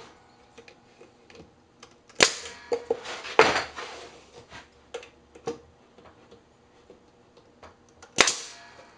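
Pneumatic brad nailer driving brads into plywood: a sharp shot with a quick hiss of air about two seconds in and again near the end, with light knocks and taps from handling the wood between.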